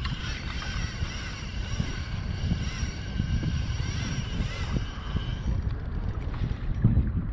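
Wind buffeting an action camera's microphone over open sea, with water sloshing against the kayak hull as a steady low rumble. A high, wavering whine sits over it for the first five seconds or so, then fades.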